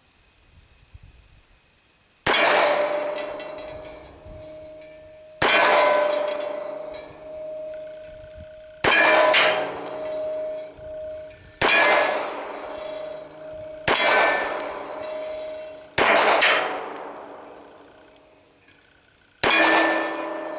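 Seven shots from a Colt Government .380 Pocketlite pistol at a mild steel plate, two to three seconds apart, each hit making the steel clang and ring on in one steady tone that fades over a couple of seconds.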